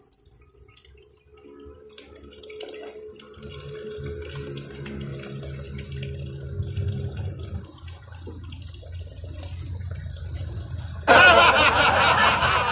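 Water running and splashing at an outdoor bath from a water drum, over a steady low hum. About eleven seconds in, a sudden, much louder rush of water starts and carries on.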